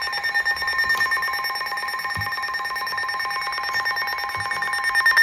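NOAA Weather Radio receivers sounding their electronic alert alarm for an incoming warning: a rapid, even trill over several steady high tones.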